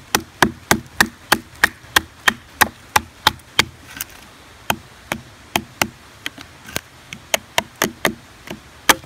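A wooden baton striking the spine of a custom bushcraft knife to drive its blade down through an upright log and split it (batoning). Sharp wooden knocks come about three a second for the first four seconds, then more slowly and unevenly.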